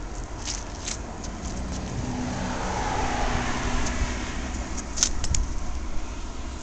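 A motor vehicle going by, its noise swelling and then fading over about three seconds, over a steady low rumble. Faint squelches and scuffs of a sneaker treading squashed food on wet concrete near the start, and a few sharp clicks about five seconds in.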